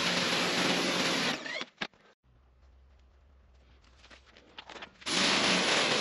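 Stanley SXPW22E electric pressure washer running, its water jet spraying with a steady hiss over a motor hum. It cuts out about a second and a half in, leaving a few clicks, and starts again about five seconds in.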